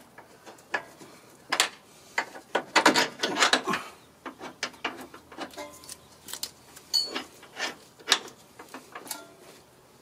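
Bolts and metal suspension parts being handled while a new front lower control arm's bolts are fitted: scattered metal clicks and knocks with some scraping, busiest about three seconds in.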